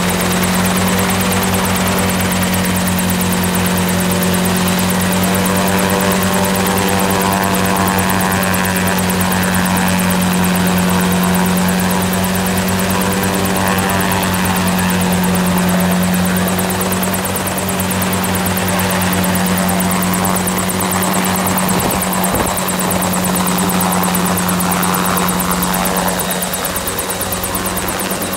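CH-7 Charlie ultralight helicopter running up with its main rotor at speed: a steady engine drone with a rapid, even blade chop. Near the end it lifts off and the sound eases slightly.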